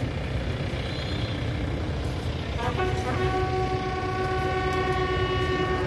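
A brass instrument in a marching band sounds a few short notes, then holds one long steady note for about three seconds, starting about halfway through. Steady crowd and street noise lies underneath.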